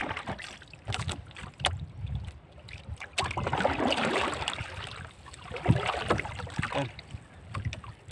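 Sea water slapping and splashing against a small outrigger boat as a paddle is worked, with irregular knocks on the hull and wind on the microphone.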